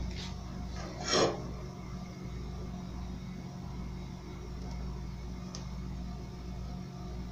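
Steady low hum in a kitchen, with a short clatter about a second in and a faint tick near the end.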